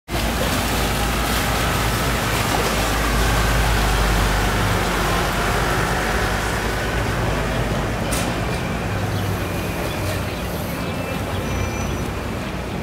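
Motorboat engines running with the steady wash of water, a low hum that is strongest in the first few seconds as a wooden motor launch passes close, then eases a little.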